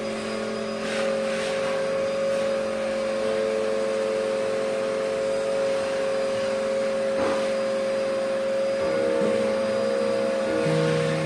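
Vacuum cleaner motor running steadily, a constant whine that drowns out the clock's chiming.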